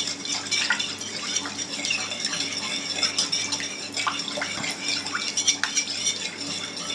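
Metal spoon stirring salted water in a mixing bowl, a continuous run of small clinks and scrapes as it sweeps round the bowl, dissolving the salt for dough.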